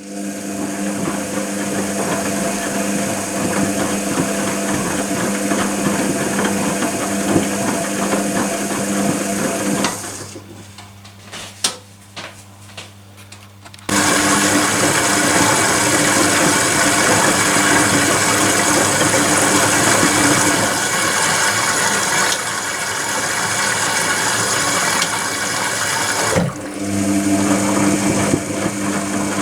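Privileg Compakt 92 washing machine running: a steady motor hum with a rushing noise starts abruptly. About ten seconds in it drops to a low hum for about four seconds, then runs loudly again, with a brief dip near the end.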